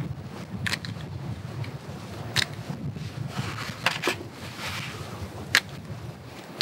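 Fresh brown mushrooms being snapped and torn apart by hand, a short crisp snap every second or so, about five in all, over a low steady background hum.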